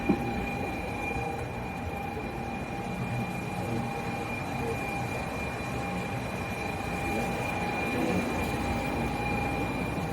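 Steady cabin noise inside a Shinkansen car, a low rumble with a constant high whine through it, and a single sharp click just after the start.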